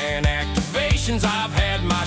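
Music with a steady drum beat, about three strokes every two seconds.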